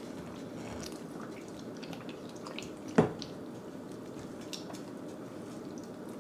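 Wooden chopsticks stirring a wet flour, cornstarch and water batter in a ceramic bowl, with soft squishing and small scattered ticks. One sharp tap about three seconds in.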